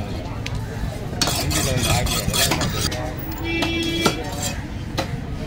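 Heavy fish-cutting knife worked over a large fish on a wooden block: a run of rasping scraping strokes, scattered sharp knocks, and a hard chop of the blade into the block about four seconds in.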